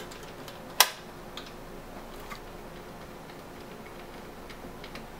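Sparse small metallic clicks and ticks from a Phillips screwdriver and screws working against a DVD drive's sheet-metal mounting cage as the drive is screwed in, with one sharper click about a second in. A faint steady hum runs underneath.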